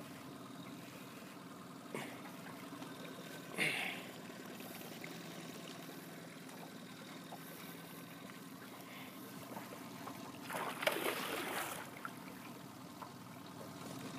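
Water lapping and trickling against an aluminium boat's hull, with a faint steady hum underneath. A brief rush of noise comes about four seconds in, and a louder one lasting about a second near eleven seconds in.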